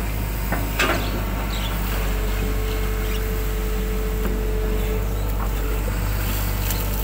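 Hitachi 120 excavator's diesel engine running steadily under digging load as the bucket scoops mud from a ditch, with a steady whine through the middle and a few knocks about a second in.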